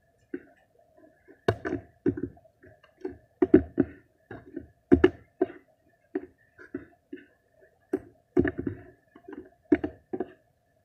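Slime being squished and pressed by hand, making irregular wet clicks and pops, some of them loud, over a faint steady hum.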